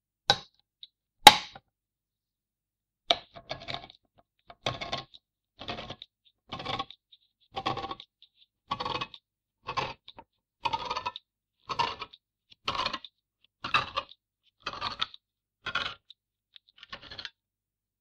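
Tin opener piercing the lid of a tin can with two clicks, then cutting around the rim in about fourteen rhythmic metal strokes, roughly one a second, stopping shortly before the end.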